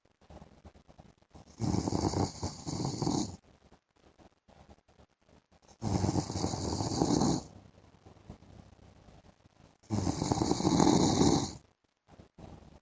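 A man snoring in his sleep: three long snores, each lasting about two seconds and coming roughly every four seconds, with little sound between them.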